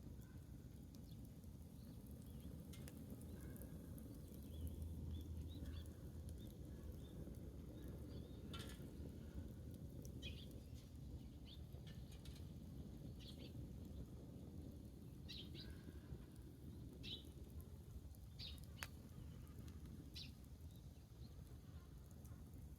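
Faint outdoor ambience: small birds chirping now and then in short calls, some in pairs, with a few sharp crackles from a wood bonfire over a low steady rumble.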